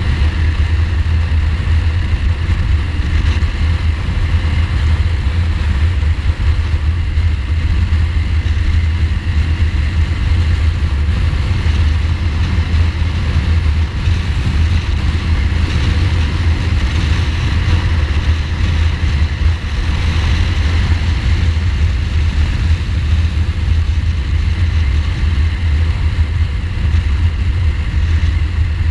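Ducati Multistrada motorcycle cruising at a steady pace, its V-twin engine running under a heavy, constant low rush of wind on the bike-mounted microphone.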